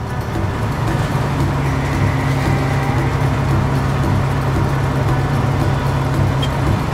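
Combine harvester running steadily: a constant low engine hum with a dense mechanical rattle over it.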